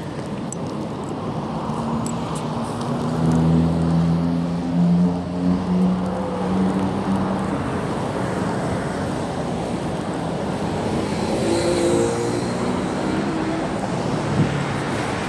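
Road traffic going by on a busy street, a steady rumble of passing vehicles. A louder vehicle engine hums past about three to six seconds in, and another passes more faintly later on.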